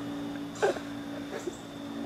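A man spitting into a mixing bowl: two short mouth sounds, one about half a second in and a fainter one near a second and a half, over a steady faint hum.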